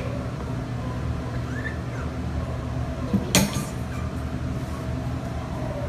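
Steady low mechanical hum of room machinery, with one sharp knock a little over three seconds in and a faint short rising squeak about two seconds in.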